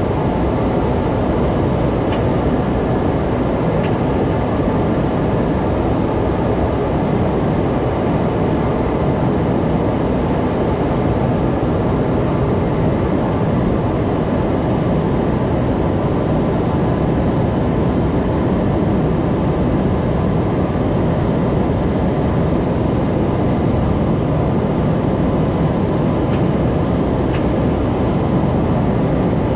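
Steady cockpit noise of a Cessna 208 Caravan on final approach: the single Pratt & Whitney PT6A turboprop and its propeller running, with airflow over the airframe, heard from inside the cabin.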